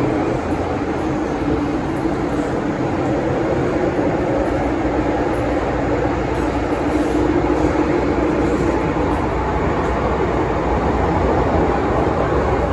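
Hong Kong MTR M-Train running at speed, heard from inside the car: a steady rumble of wheels on rail with a low hum that grows slightly stronger in the middle.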